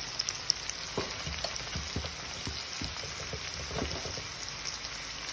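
Okra and sliced onion frying in a pan with a steady sizzle, with a few light knocks along the way.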